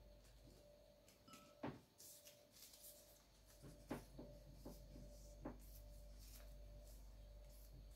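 Near silence with room hum, broken by a few faint clicks and knocks and a brief rustle of small objects being handled.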